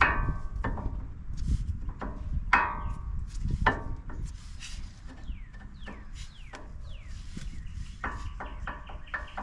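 New brake pads being tapped into a four-piston brake caliper: sharp knocks with a metallic ring, several separate strikes in the first four seconds, then a quick run of lighter taps near the end. The pads are a tight fit.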